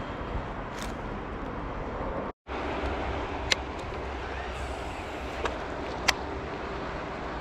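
Steady outdoor background rumble, with a few sharp clicks standing out over it. It cuts out for a moment about two seconds in.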